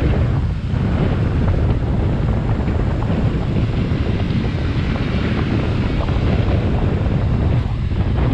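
Steady wind rushing over the microphone on a moving motorbike tuk-tuk, with vehicle noise from the ride and passing scooters underneath.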